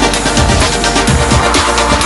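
Electronic dance music with a steady, fast beat and heavy bass.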